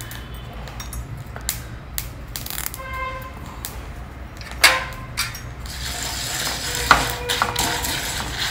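A spatula stirring dry-roasting spices and curry leaves in a hot pan: scattered scrapes, clicks and knocks on the pan over a low steady hum.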